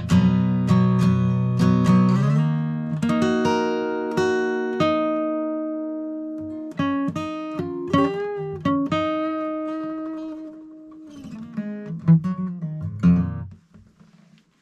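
Acoustic guitar strummed, then single notes picked and left to ring, one of them bent or wavering, then a few last strums that stop shortly before the end.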